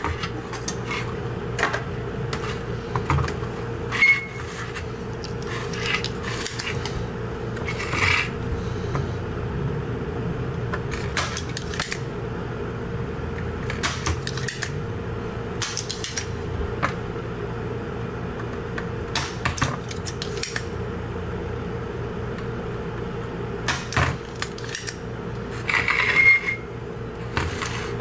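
Small metal tools clicking and tapping against a circuit board while stepper motors are desoldered and pried off. The sharp clicks come irregularly, with a denser cluster near the end, over a steady low hum.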